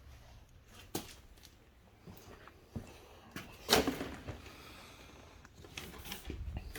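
A few scattered handling clicks and knocks a second or two apart, the loudest a short rustling knock about halfway through, over a faint low hum.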